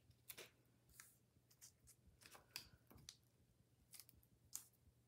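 Faint, irregular clicks and light scuffs, a dozen or so, from a small rubber stamp being handled and pressed onto paper.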